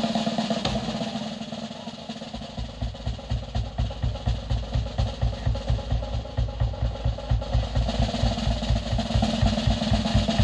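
Drum kit solo played live: a roll for the first couple of seconds, then the bass drum settles into steady beats about three a second under cymbal and snare work, with the roll picking up again near the end.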